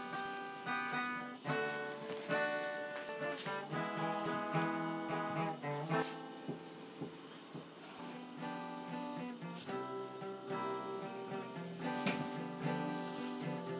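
Background music: an acoustic guitar strumming chords, with new chords and strums every second or so.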